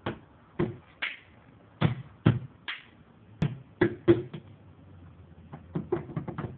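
A person making a run of sharp clicking or knocking noises, mostly in groups of three, then a quicker patter of clicks near the end.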